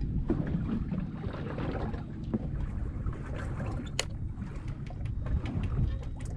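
Wind buffeting the microphone and water lapping at the hull of a drifting boat, with scattered light clicks and one sharper click about four seconds in.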